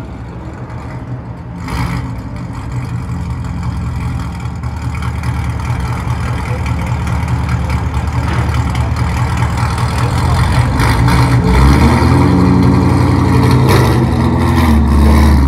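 2017 Chevrolet Corvette Stingray's 6.2-litre V8 revving through a muffler-deleted exhaust with an X-pipe, long-tube headers and quad tips. There is a short blip about two seconds in, then repeated revs that grow louder through the second half.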